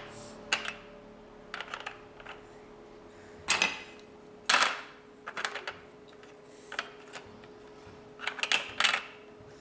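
Small plastic car and truck pieces of a sliding-block traffic puzzle clicking and clacking as they are picked up and set down on the plastic grid tray, in scattered taps with louder clacks about the middle and near the end. A faint steady hum runs underneath.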